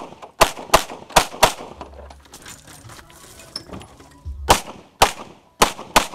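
An Open-division 9mm major race pistol firing rapid pairs of shots: four shots in about a second, a pause of about three seconds, then four more.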